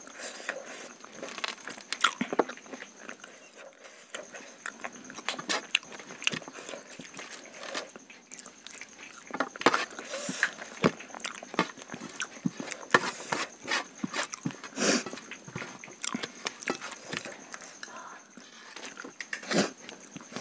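Close-up eating by hand: wet chewing and mouth smacks, with fingers scooping rice on a steel plate, making many irregular short clicks.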